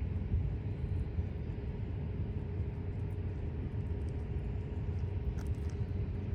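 Freight train rolling past the grade crossing: a steady low rumble with a faint steady tone above it.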